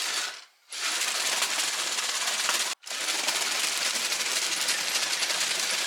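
Mould King toy bulldozer's plastic tracks and gearing clattering rapidly over loose stones under its motors, a steady dense rattle as it struggles on a rocky slope, cutting out briefly near three seconds in.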